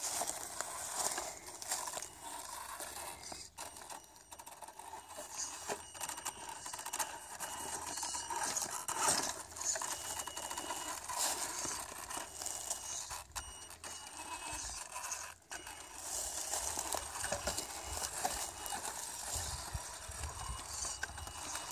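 Axial Yeti radio-controlled truck's electric motor and gear train whining on and off as it crawls, with its tyres knocking, scraping and rattling over loose wooden planks.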